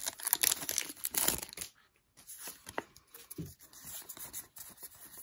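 Foil booster pack wrapper crinkling and tearing as it is pulled open for about the first second and a half, then softer clicks and rustles as the trading cards are slid out and handled.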